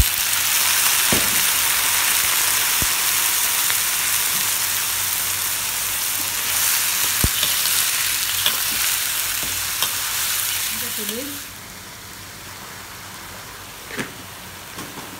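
Pieces of stingray frying in hot oil in a steel wok with a loud, steady sizzle that starts suddenly as they go in, with a few brief knocks of the spatula against the pan as they are stirred. The sizzle drops off abruptly about two-thirds of the way through.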